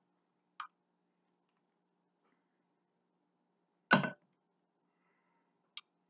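A few sharp clicks and knocks from a hand-held lemon squeezer being worked over a glass bowl: a small click about half a second in, a loud knock about four seconds in, and a faint click near the end.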